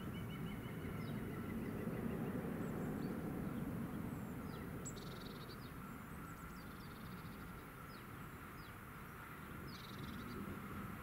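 Small songbirds chirping with short, sharp calls and a brief trill, over a faint low rumble in the distance.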